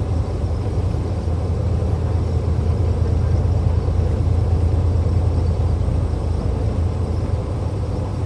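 Steady low rumble of a vehicle driving along a road at speed, heard from on board.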